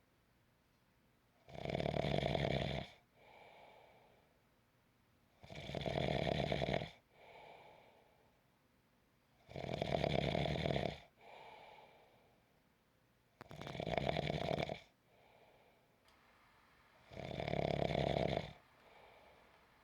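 Snoring in a slow, even rhythm: five loud snores about four seconds apart, each followed by a fainter breath.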